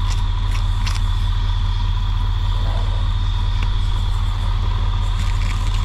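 Truck engine idling steadily with a low hum, with a few faint clicks over it.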